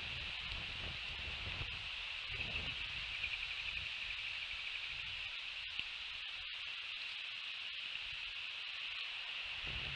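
Outdoor ambience: a steady high-pitched hiss with a fluctuating low wind rumble on the microphone.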